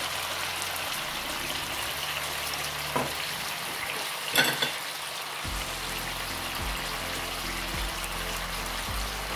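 Soy-sauced chicken pieces sizzling steadily in a frying pan, with a light knock about three seconds in and a louder clatter about halfway through. Soft background music comes in during the second half.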